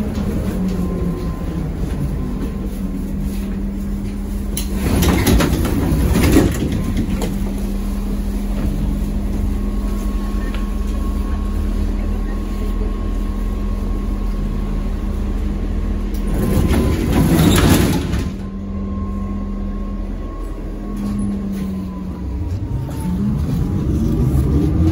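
ZiU-682V trolleybus heard from inside, standing with a steady electrical hum. There are two rushing bursts of noise, each about a second and a half long, about five and seventeen seconds in, as the doors work. Near the end the traction motor's whine rises in pitch as the trolleybus pulls away.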